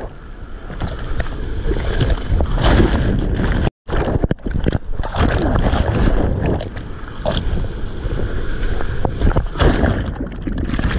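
Seawater splashing and rushing right against a surfer's action camera, with heavy rumbling buffeting on the microphone; the sound cuts out briefly about a third of the way in.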